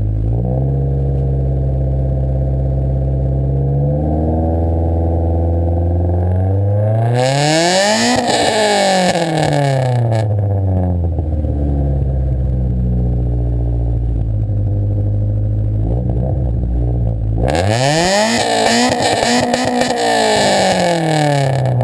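Honda Civic's 1.5-litre four-cylinder with a D16Y8 head and a Blox Street Tuner Stage 1 cam, idling and free-revved twice with no load: the pitch climbs to a peak and drops back to idle about eight seconds in, then again near the end.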